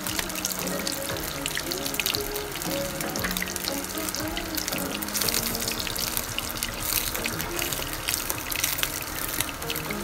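Hot oil sizzling and crackling steadily as a sardine and egg patty shallow-fries in a pan, with background music playing under it.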